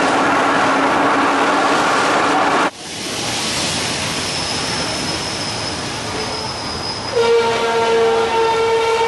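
Old wooden subway carriage running through the tunnel with a loud, steady rumble; after a sudden drop about two and a half seconds in it is much quieter, and about seven seconds in a strong steady pitched tone with overtones starts and holds.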